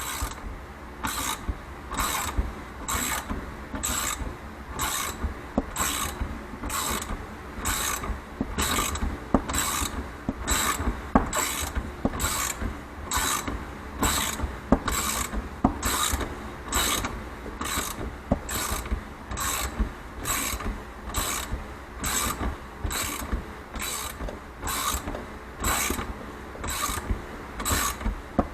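Ratchet clicking in steady strokes, about two a second, as a motorcycle spring compressor is cranked on an ATV coil-over shock.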